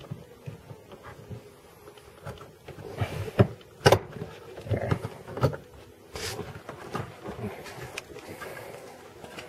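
Plastic interior trim panel of a 2003 Corvette Z06 being worked loose by hand: a run of sharp clicks and knocks from about three seconds in, the two loudest about half a second apart, typical of trim clips popping and the panel knocking as it is pulled.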